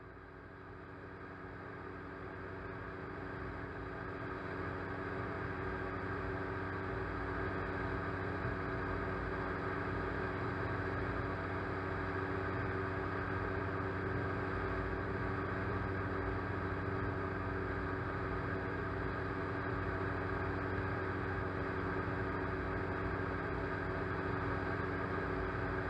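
Motor and propellers of a small remote-controlled aircraft running at a steady whine, heard from its onboard camera. It grows louder over the first few seconds, then holds even.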